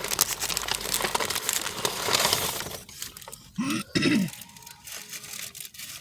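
Paper food wrappers and a fast-food bag rustling and crinkling for the first few seconds, then two short vocal sounds about three and a half seconds in.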